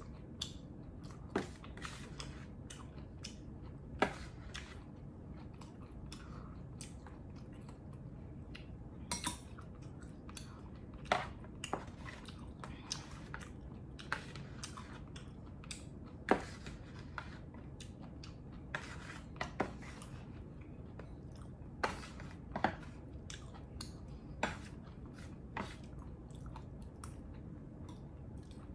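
A person chewing and eating soup, with a metal spoon clinking sharply against a stainless steel pot every second or few. A steady low hum runs underneath.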